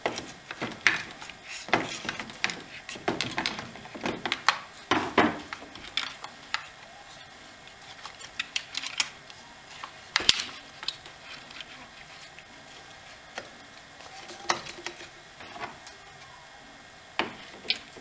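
Mechanic wire and a pair of pliers scraping and clicking against a chainsaw's plastic housing as the wire is worked through a fuel-line hole: irregular small clicks and scrapes, busiest in the first few seconds, with one sharp click about ten seconds in.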